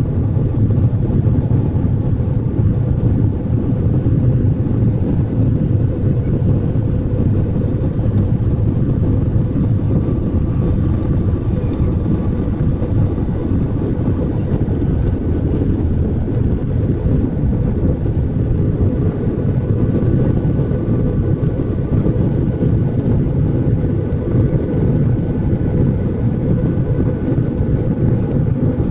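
Airliner cabin noise during takeoff: a steady, loud low rumble of the engines at takeoff power as the plane runs down the runway and climbs away.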